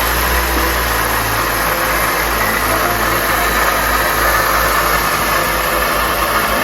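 Toyota Voxy (ZRR80) engine idling just after start-up, with a steady abnormal noise from a failing water pump that is leaking coolant.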